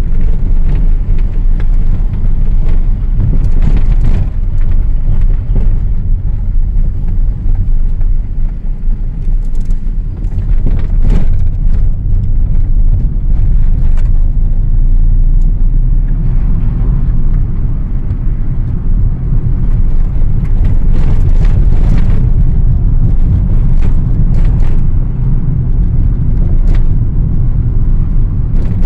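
Car cabin noise while driving: a loud, steady low rumble of road and wind noise, with a few faint clicks.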